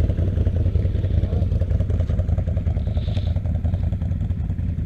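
Off-road vehicle engine idling steadily: a low, even rumble.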